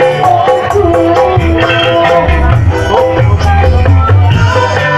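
Loud music played through a large PA sound system at contest volume: a heavy bass line under a wavering melody and steady percussion.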